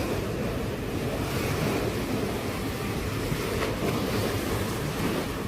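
Steady rushing noise, strongest in the low range, with no distinct events.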